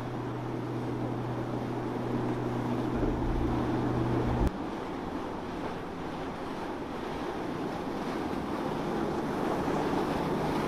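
Boat engine drone mixed with waves and wind buffeting the microphone. About four and a half seconds in the sound cuts abruptly with a click, and after that the wind and surf are stronger and the engine fainter.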